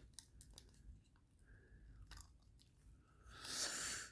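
A small screw in a Spyderco Shaman folding knife being turned out: a few faint ticks, then near the end a gritty, crunching grind as the threads turn through dried Loctite thread-locker.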